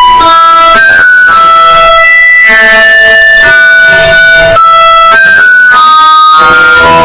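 Loud instrumental background music, a melody of held notes that change pitch every second or so.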